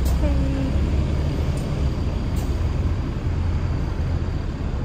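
Steady low rumble of bus traffic around a bus terminus, with a brief pitched hum near the start.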